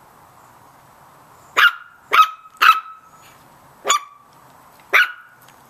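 Chihuahua puppies barking at a cat: five short, high-pitched barks starting about a second and a half in, three in quick succession and then two more about a second apart.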